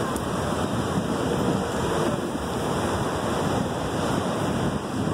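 Ocean surf breaking and washing up on a sandy beach, a steady rush of noise, with wind on the microphone.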